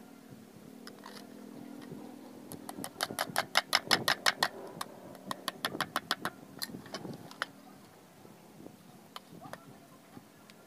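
Knife blade tapping and chopping at bamboo strips laid on a wooden log: a fast run of sharp clicks, about eight a second, a few seconds in, then a handful of scattered knocks.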